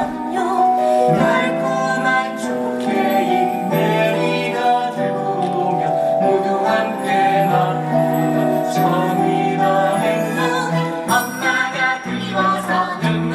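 Music from a stage musical number: held instrumental notes moving from chord to chord, with light bell-like tinkling.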